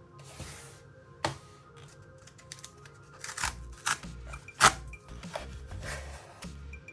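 Cardboard phone-box packaging being torn open and handled, a series of sharp clicks, rips and scrapes, the loudest about a second in and near the middle, over soft background music.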